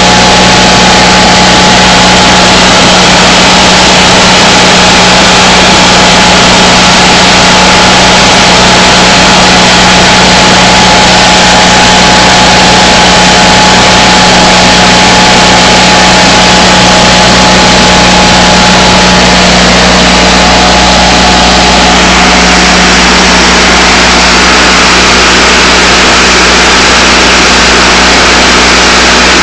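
Lincoln Ranger 8 welder/generator's Onan Performer 16 twin-cylinder gasoline engine running loud and steady. Its tone shifts slightly about two-thirds of the way through.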